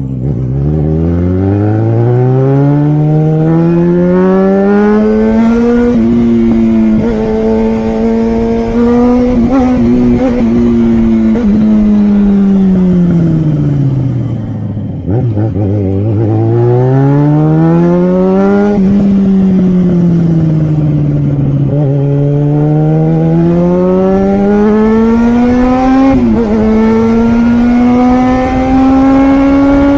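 Yamaha XJ6's 600 cc inline-four engine under way, its pitch rising and falling as the bike speeds up and slows. The revs climb smoothly over several seconds, sink to their lowest about halfway through, then climb again toward the end.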